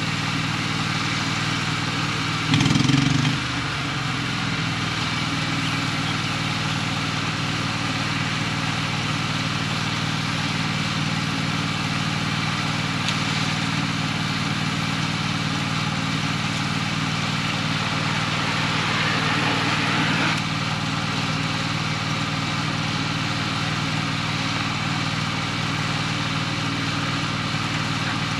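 Diesel engine of heavy earthmoving equipment running steadily at working speed, with a brief louder surge about three seconds in and a smaller swell around twenty seconds.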